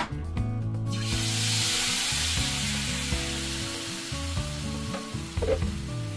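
Blended guajillo chile sauce poured through a strainer into hot oil in a skillet, setting off a sudden sizzle about a second in that slowly dies down.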